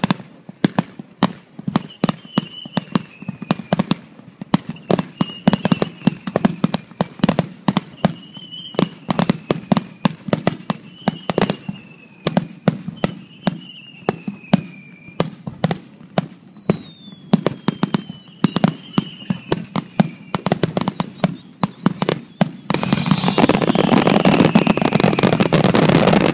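Aerial fireworks display: shell bursts bang one after another, several a second, with a falling whistle repeating every second or two. About three seconds before the end the bursts run together into a dense, louder barrage.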